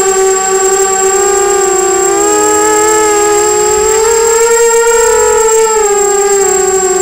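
Brushless motors and propellers of a 250-size FPV racing quadcopter whining, heard from its onboard camera; the pitch wavers with throttle, dipping a couple of seconds in and climbing highest about four to five seconds in before settling back. A thin, steady high whine runs above it.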